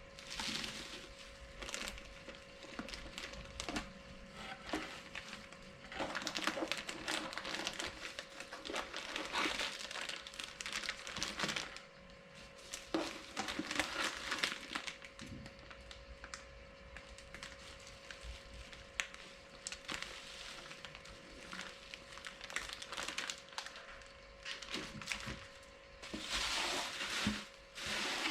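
Packaging being handled and opened: irregular crinkling and rustling in bursts with quieter gaps, over a faint steady hum.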